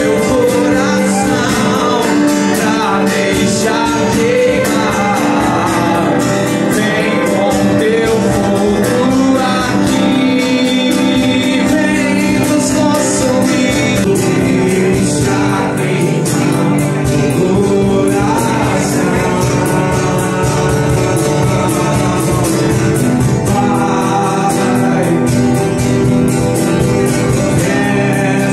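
Christian worship song: singing over instrumental accompaniment, continuous and steady.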